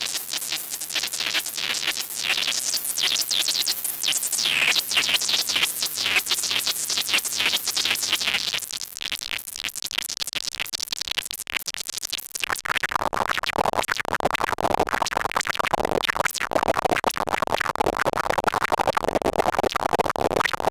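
Make Noise Eurorack modular synthesizer doing glisson synthesis: a dense stream of very short blips, each gliding up or down in pitch by a random amount. About twelve seconds in, the blips shift lower in pitch.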